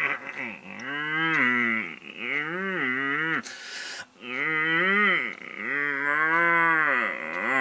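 Cow mooing: four long, drawn-out moos, each rising and then falling in pitch, with short pauses between them.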